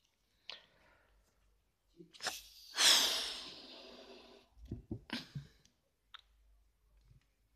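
Close handling noise of latex party balloons being moved about. There is a click, then a loud hissing rush that fades over about a second and a half, then several dull thumps.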